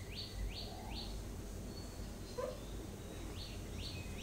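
A bird calling in a quick series of short descending chirps, about two or three a second, with a pause of about two seconds in the middle, heard faintly over a low steady hum.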